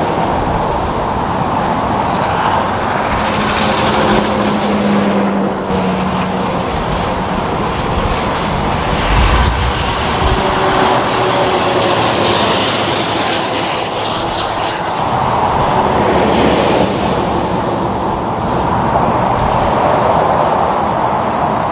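Steady road traffic with trucks and cars passing. Tyre noise and engine hum swell and fade every few seconds.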